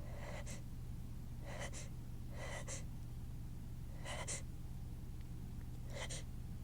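A woman's sharp gasping inhales, five of them a second or two apart, the catching breaths of a sneeze build-up that stays stuck without releasing.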